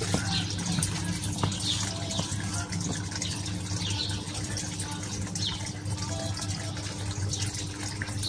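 A steady low hum with short, high, falling chirps from small birds repeating about once or twice a second.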